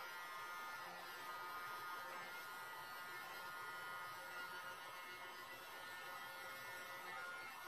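Handheld electric heat gun with its nozzle attachment removed, running steadily: a fan hum and rush of air with a faint steady whine, blown over wet epoxy resin on a canvas.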